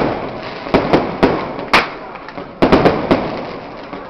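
Aerial firework shells bursting in quick succession: sharp bangs about every half second, with a fast cluster of three a little after the halfway point, each trailing off in a fading rumble.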